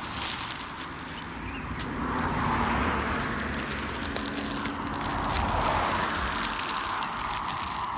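Road traffic: passing cars whose tyre and engine noise swells twice, with light crackling over it.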